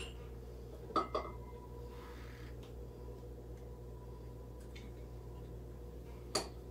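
Light clinks of a metal measuring cup and knife, twice about a second in and once near the end, with a faint soft scrape between, as flour is scooped, levelled and tipped into a mixing bowl, over a low steady hum.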